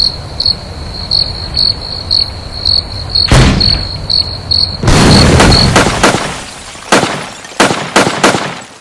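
Crickets chirping about two to three times a second. A sharp thud sounds about a third of the way in, then a loud explosion about halfway that fades out slowly, followed by four sharp bangs near the end.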